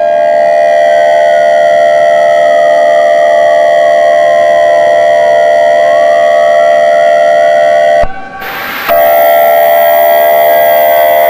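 Civil defense warning siren sounding loudly as a steady multi-tone chord, with a slow wail gliding down and back up in pitch. It cuts out about eight seconds in, gives a short burst of static, then comes back.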